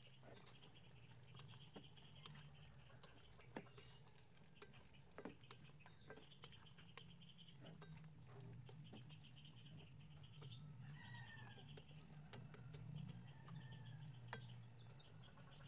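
Coconut-milk sauce of a chicken stew simmering in a pan, heard as faint, scattered small pops and crackles of bubbling over a low steady hum.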